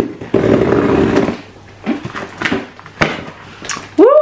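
A taped-up shipping parcel being forced open: packaging tears with one rasping sound about a second long, followed by a few crinkles and clicks. A short exclaimed 'oh' comes at the very end.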